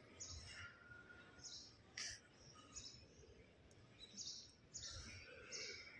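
Near silence in a quiet hall, with faint, short, high chirps repeating about twice a second and a single brief click about two seconds in.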